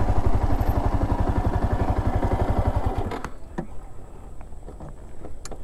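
A motorcycle engine runs at riding speed with wind and road noise. About three seconds in, the sound drops off sharply to a much quieter low engine note as the throttle closes and the bike slows, with a few sharp clicks.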